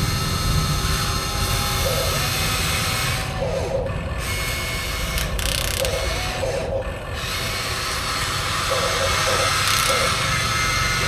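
Electric motors and gearboxes of radio-controlled scale construction machines running, a steady grinding whine with higher whines starting and stopping in short spurts as the machines move.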